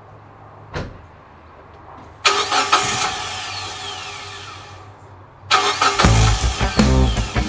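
2003 Mitsubishi Eclipse GS's 2.4-litre four-cylinder engine being started. A click comes about a second in, a sudden loud start about two seconds in that fades, then louder, uneven running from about five and a half seconds. The car has trouble starting and idles rough, which the owner blames on failing oxygen and camshaft sensors.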